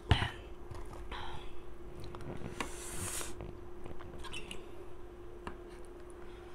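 A drinking glass set down on a wooden table with a single knock, followed by soft breathy sounds and light clicks of a fork against a plate, over a faint steady hum.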